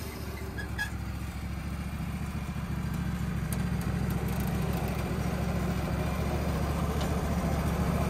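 Wood-Mizer LT15 portable sawmill's engine running steadily with no blade cutting, a low hum that grows a little louder over the first few seconds.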